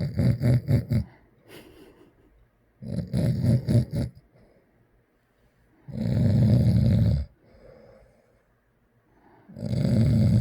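A man snoring heavily in his sleep after drinking alcohol. Four loud rumbling snores about three seconds apart, each lasting about a second; the first two rattle in quick pulses and the last two are smoother.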